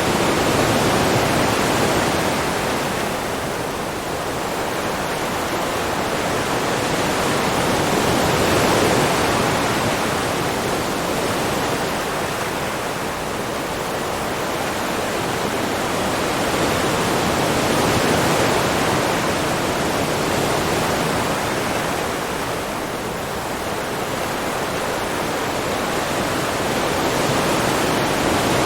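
Ocean waves on a shore: a continuous rush of surf that swells as a wave breaks and ebbs as it washes back, in slow surges roughly every nine or ten seconds.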